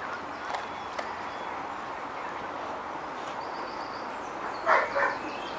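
Steady outdoor hiss with a faint bird chirp a little past the middle, then near the end a beagle barks twice, short and sharp.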